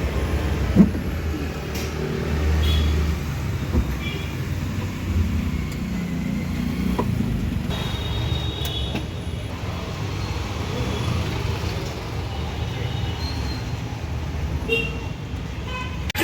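Road traffic noise: a steady low engine rumble with faint short tones now and then. A single sharp knock sounds about a second in.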